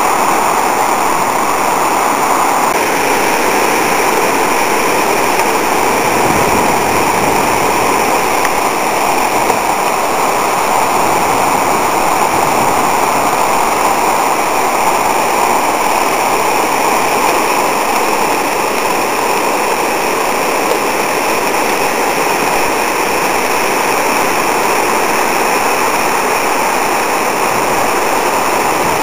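Steady rushing and churning of the flood-swollen Arkansas River's muddy current, mixed with wind blowing across the microphone.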